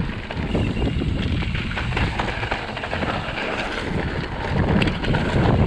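Mountain bike riding fast down a dry, dusty dirt trail: wind buffeting a chest-mounted action camera's microphone over the tyres running on dirt, with frequent clicks and knocks as the bike rattles over bumps.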